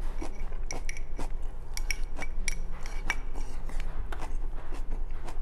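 Chopsticks tapping and scraping against a white ceramic rice bowl while eating from it: quick, irregular clicks, some with a brief light ring of the bowl.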